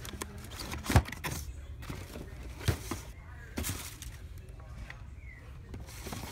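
Cardboard-and-plastic die-cast car display boxes being handled and moved on a store shelf: a few sharp knocks, the loudest about a second in, with handling noise between.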